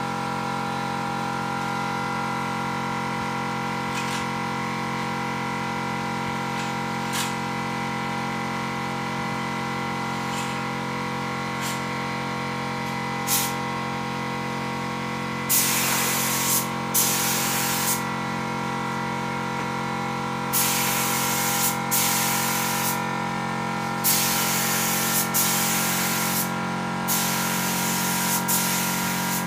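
Compressed-air spray gun spraying PU polish in a series of short hissing bursts of about a second each, starting about halfway through. Under them is a steady machine hum, the air compressor running. A few faint clicks come before the spraying starts.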